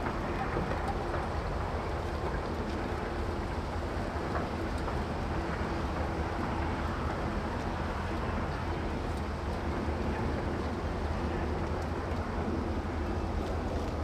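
Cessna 140's engine running with a steady, unchanging drone.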